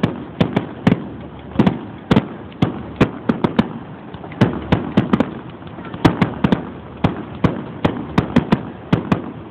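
Fireworks display: a rapid, uneven run of sharp bangs, several a second, one after another without pause.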